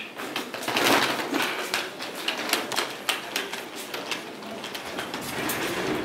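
Footsteps on a tiled floor mixed with the crinkling of a plastic carrier bag: a run of irregular clicks and rustles.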